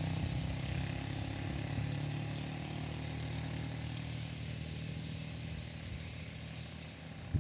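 Small battery-powered air pump clipped to a bucket, humming steadily as it aerates the water for live bait fish. A brief knock near the end.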